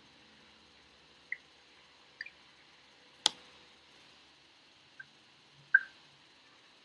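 Faint steady background hiss with several short, sharp clicks and ticks scattered through it, the loudest a sharp click about three seconds in and another tick near the end.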